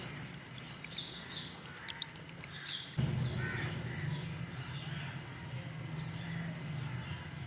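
Pet lovebirds giving short chirps and squawks, mixed with a few sharp clicks. A low steady hum starts suddenly about three seconds in.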